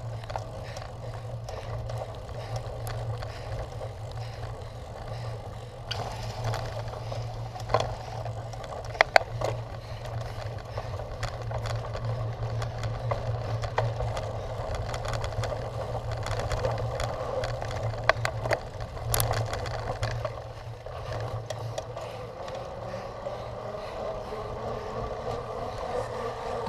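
Cyclocross bike being ridden over rough ground: steady rumble and rattle from the tyres and frame, with a low hum underneath and sharp clicks and knocks from bumps, loudest twice around the middle.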